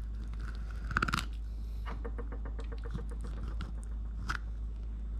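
Knife slicing a bluegill fillet away from the rib cage on a wooden cutting board: a cluster of light crackling strokes about a second in, a quick run of small clicks a second later, and a single click near the end, over a steady low hum.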